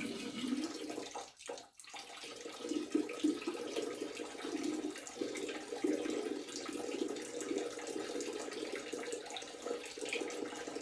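A steady stream of liquid splashing into toilet bowl water, a man urinating; the stream starts about two seconds in after a short pause and runs on unbroken.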